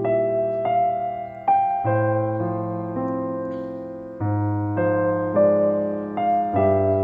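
Background music: a gentle piano melody over sustained chords, notes and chords struck about every half second to second and left to ring.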